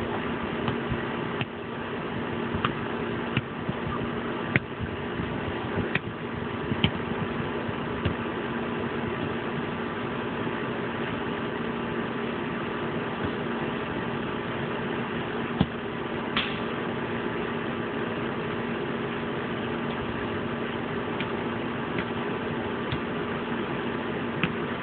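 A steady mechanical hum holding a constant pitch, with a few short faint clicks scattered through it.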